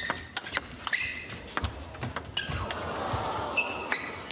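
Table tennis rally: the celluloid-type ball clicks sharply off rubber paddles and the table, and players' shoes squeak on the court floor. A hiss of crowd noise swells in the second half.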